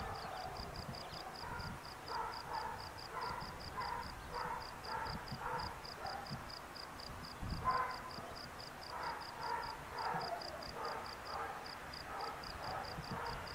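Outdoor ambience with animal calls: a high chirp repeating evenly about five times a second, over irregular lower calls and a low rumble of wind.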